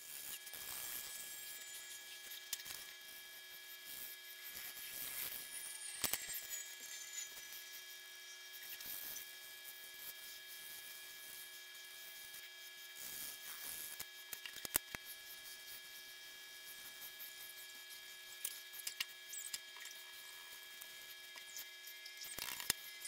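Graphite pencil strokes scratching and scraping on drawing paper in short irregular strokes, with a few sharp clicks, over a faint steady hum.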